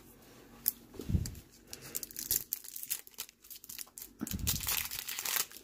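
Foil trading-card pack wrapper being crinkled and torn open, irregular crackling rustles with a couple of dull bumps of handling.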